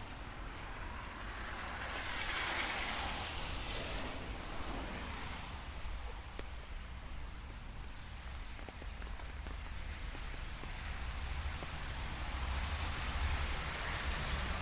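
Steady hiss of rain over a city street with a low traffic rumble underneath; the hiss swells twice, about two seconds in and again near the end, as vehicles pass on the wet road.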